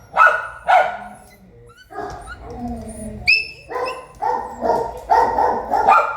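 A dog barking: two sharp barks at the start, then after a quieter pause a high yip, then a quick run of barks near the end.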